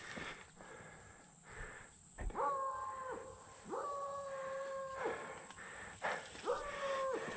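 Blood-tracking dog howling: three long, level-pitched howls, each about a second long, starting a couple of seconds in.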